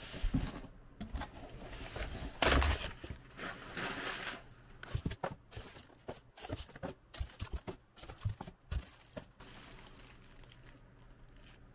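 Cardboard shipping box being handled and opened, then clear plastic bags around small retail boxes crinkling as they are lifted out: irregular rustles and light knocks, busiest in the first few seconds and sparser later.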